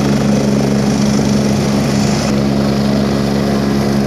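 Helicopter running on the ground, a loud steady drone with a low hum, as it gets up to speed before take-off.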